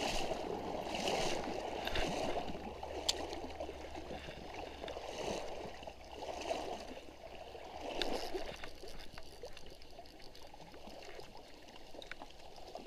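Shallow stream water running and gurgling, swelling every second or two and easing off in the latter half, with a couple of sharp clicks.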